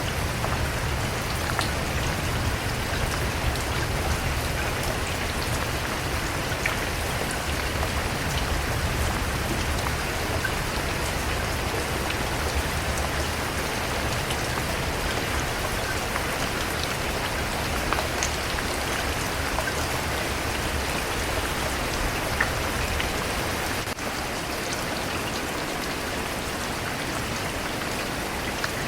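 Steady rain falling, a dense even hiss with scattered individual drops ticking, over a low rumble that eases off about three-quarters of the way through.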